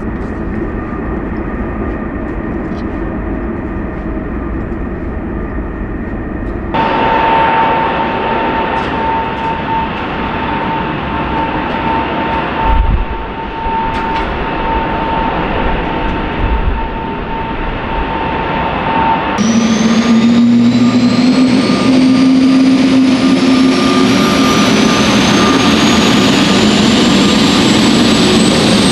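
F-35 jet engine (Pratt & Whitney F135 turbofan) running, with a steady whine over its noise. The sound changes abruptly twice as the footage cuts between shots. In the last third a whine rises steadily in pitch as the engine spools up.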